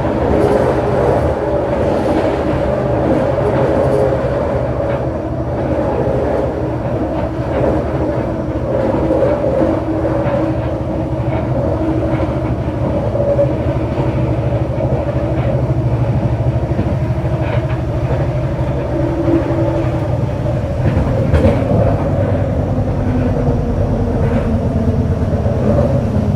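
Scarborough RT light metro train, driven by linear induction motors, running along its track as heard from inside the car: a steady rumble of wheels on rail with scattered clicks, and humming tones that shift slightly in pitch.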